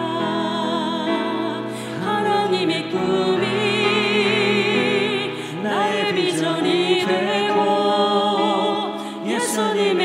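Women's choir singing a slow Korean worship song with vibrato on the held notes, over keyboard and band accompaniment.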